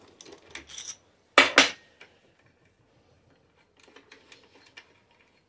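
Metal jig hardware being handled: a few small clicks, then a loud double clatter about a second and a half in as the steel thumb-knob assembly is set down on the metal table-saw top, then faint clicking as the bracket bolt is worked.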